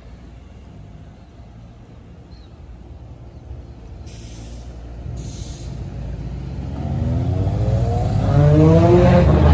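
Ferrari 599's V12 pulling away at low revs with a steady low rumble, then an engine note that rises in pitch and grows loud over the last few seconds as it accelerates.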